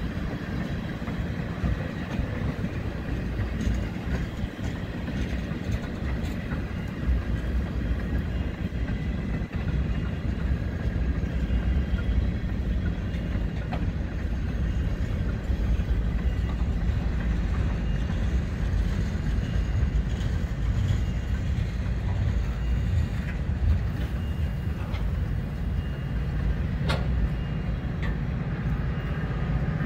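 Freight train of tank cars and covered hoppers rolling past, a steady low rumble of steel wheels on rail with a few sharp clicks.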